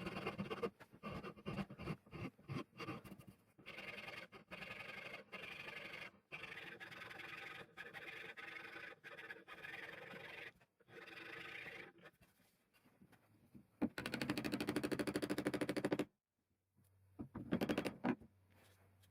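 Repeated short scraping and rubbing strokes of hand work on a tool, then a small power tool buzzing in two short runs, the first about two seconds long.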